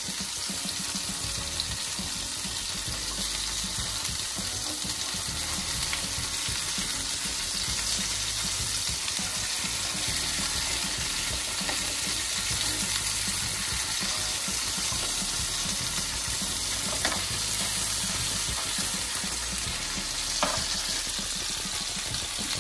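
Beef steaks sizzling in butter in a nonstick grill pan, a steady frying hiss. A few light clicks come through it.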